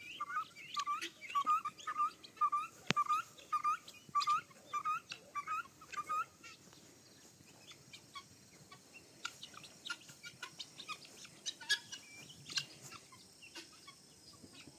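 Flock of helmeted guinea fowl calling, a quick run of short rising calls at about three a second that stops about six seconds in, leaving scattered faint chirps.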